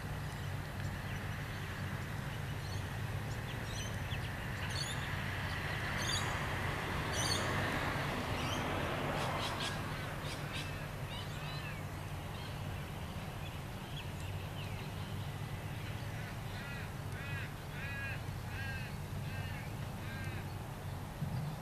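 Diesel engine of a Kobelco excavator running steadily under birds calling. There is a swell of rushing noise about a third of the way in. Near the end comes a quick series of repeated calls, about two a second.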